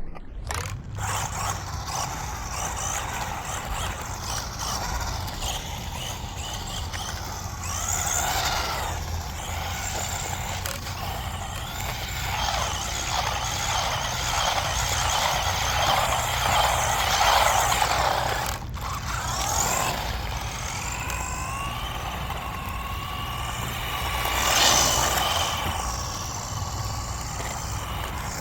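Brushed electric motor and drivetrain of a JJRC Rigid C8805 1/14-scale RC desert truck whining as it drives on wet ground, the pitch rising and falling over and over as it speeds up and slows down.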